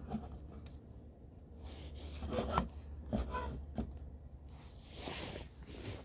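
A few irregular crunching steps in snow, over a low steady rumble.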